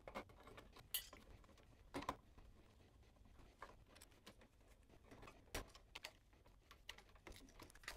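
Faint, scattered clicks and light metal taps from a hand screwdriver backing screws out of a metal electrical box's cover plate and a light switch's terminals.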